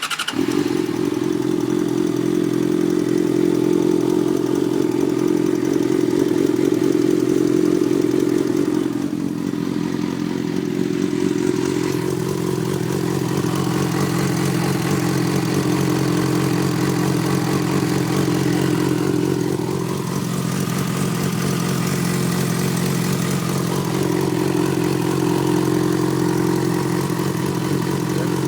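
Yamaha FZ6's inline-four engine idling steadily with a ticking noise, which the owner wonders is the normal tick these bikes are known for. The running note dips briefly about nine seconds in.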